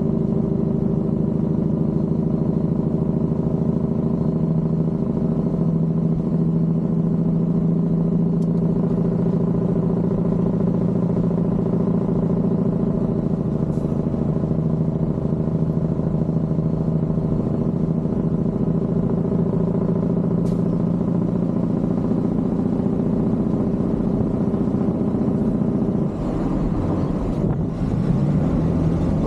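Peterbilt 379 semi's diesel engine running steadily, with one strong unchanging tone, as it rolls downhill pulling a heavy excavator load. About 26 seconds in the sound dips and shifts briefly, then settles back into the same steady tone.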